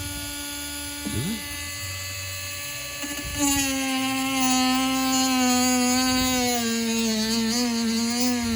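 Small handheld rotary tool whining steadily as it cuts into a charger's plastic casing. About three seconds in it gets louder and its pitch sags and wavers as the tool bears down on the plastic.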